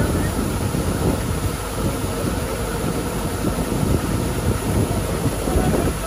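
Rice combine harvester running steadily while its unloading auger pours threshed grain out of the spout into a sack.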